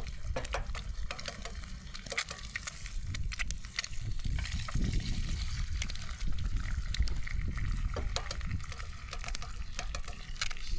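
Eggs frying in butter in a hot pan over a campfire: sizzling with many scattered sharp pops and crackles, over a steady low rumble.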